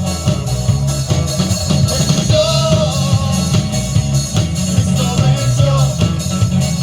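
Loud music with a sung melody over a steady bass and drum beat, played through a sound system.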